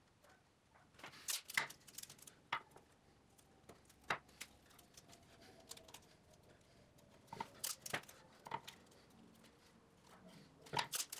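Masking tape being pulled, torn and pressed around a small glued wooden part: faint sharp clicks and crackles, a few at a time, with light knocks of the wood and tape roll on the bench.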